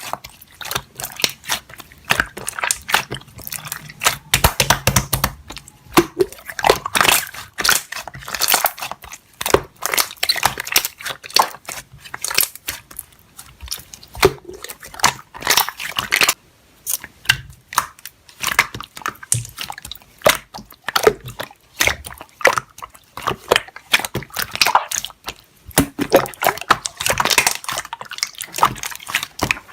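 Slime being squished and pressed by hand: a dense, irregular run of wet clicks and crackling pops.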